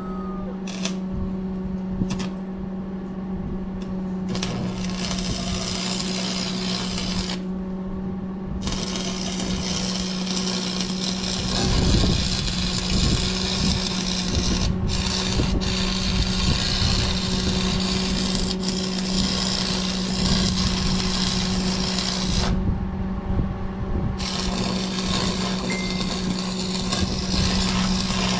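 Electric arc welding on steel: the arc crackles and sizzles in long runs, stopping briefly twice between beads, over a steady hum from the welding machine.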